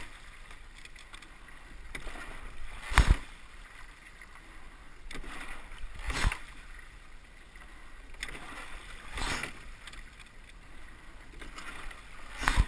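Two-person rowing shell under way at a steady, easy rate: a sharp knock of oars and oarlocks at each stroke, about one every three seconds, with the wash of water along the hull between strokes.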